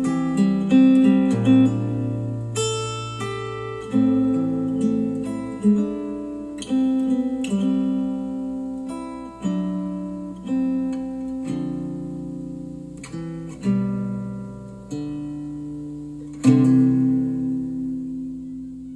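Acoustic guitar music, picked notes and chords ringing out and decaying, played back through Polk Audio TSi 200 bookshelf speakers. The last chord dies away near the end.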